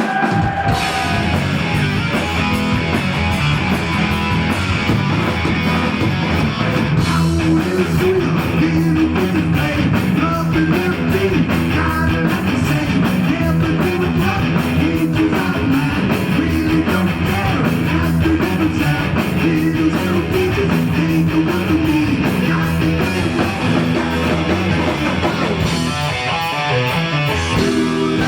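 Heavy metal band playing live, with distorted electric guitars, bass and drums. A steady, fast beat of drum and cymbal strokes comes in about seven seconds in.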